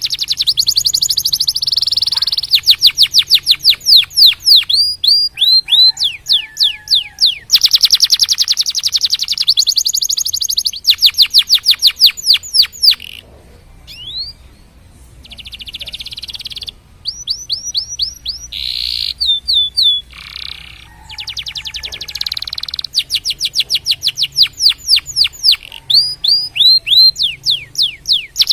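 Domestic canary singing: fast trills of rapidly repeated down-sweeping notes in changing phrases, with a brief lull about halfway through.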